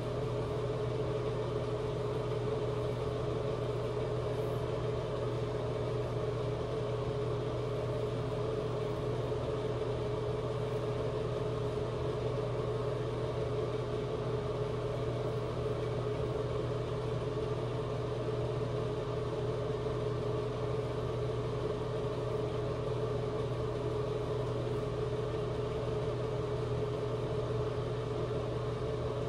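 A steady machine hum: one constant tone over a low drone, unchanging throughout.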